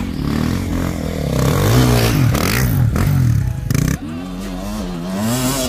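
Enduro dirt bike engine revving hard on a steep muddy climb, its pitch rising and falling with the throttle. About four seconds in, the sound drops and a motorcycle engine runs close by at a steadier, wavering pitch.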